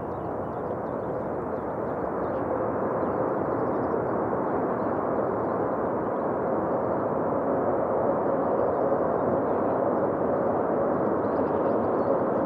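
Jet engines of a twin-engine Boeing 787 airliner running at high power on the runway. It is a steady rushing noise with a faint steady hum in it, building over the first few seconds and then holding.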